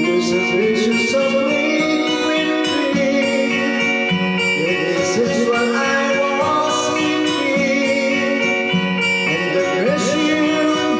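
Guitar music: chords held under a melodic line that bends and slides in pitch, without pauses.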